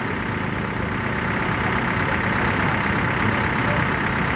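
Heavy diesel engine running steadily at low revs, a constant, even mechanical noise with no change in pitch.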